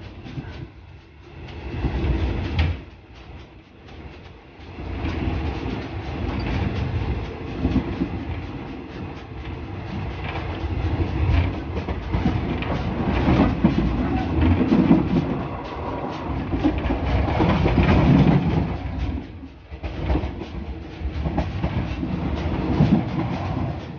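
Passenger train running along the track, wheels clattering on the rails, its rumble swelling and fading.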